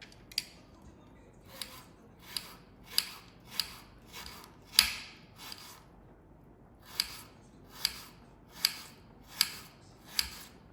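A steady series of about a dozen crisp cutting strokes, roughly one every three-quarters of a second, each a short swish ending in a sharp snap. There is a short pause about halfway through, and the loudest stroke comes about five seconds in.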